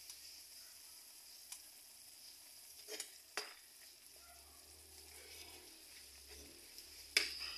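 Chicken pieces sizzling in sauce in a wok as a wooden spatula stirs them, with steady frying hiss. A few sharp knocks of the spatula against the pan come around the middle, and the loudest comes near the end.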